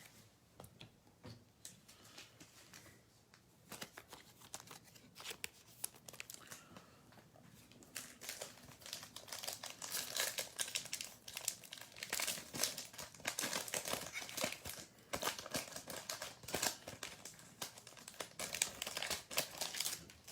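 Trading card pack wrapper being torn open and crinkled. Faint scattered rustles at first, then dense, irregular crinkling from about eight seconds in until near the end.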